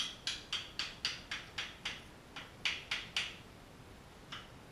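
Wooden wedges being tapped into place between kayak building forms: a run of light, quick taps, about four a second, pausing about three seconds in and resuming near the end.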